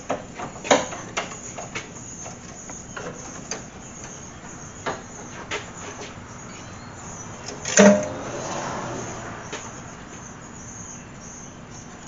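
Scattered light clicks and knocks of hand work on metal car parts. One louder clank comes about eight seconds in, followed by a brief rustle.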